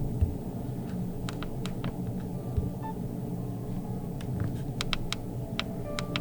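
Steady low hum and rumble, with a scattering of short, light clicks and a couple of faint brief beeps.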